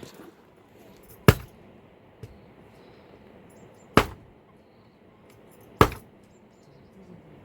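Three sharp knocks a couple of seconds apart, with a faint tap between the first two.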